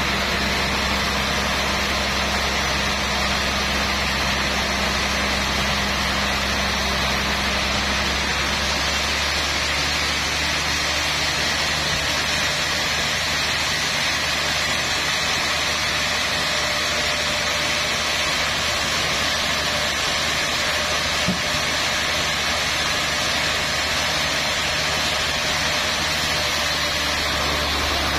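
Large band sawmill running steadily as its blade saws lengthwise through a trembesi (rain tree) log, a continuous machine whir with cutting noise. Its low hum shifts lower about nine seconds in.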